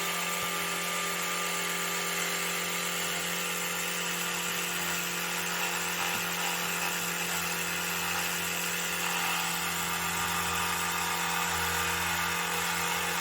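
Electric toothbrush running steadily as it is held against the teeth of a plastic model, with an even, unbroken motor hum.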